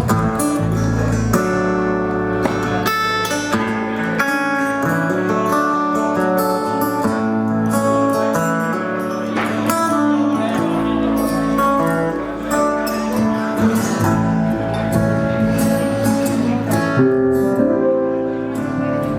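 Instrumental intro played on acoustic guitar, picked and strummed, over low sustained bass notes, with no singing.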